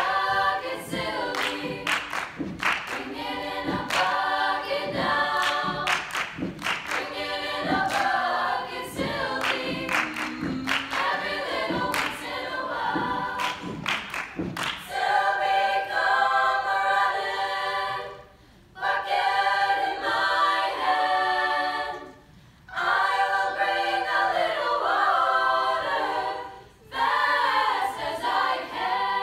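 Treble choir of young women singing a cappella. Through the first half the singing is accompanied by rhythmic hand clapping; then the claps stop and the choir sings sustained chords alone, with three short breaks between phrases.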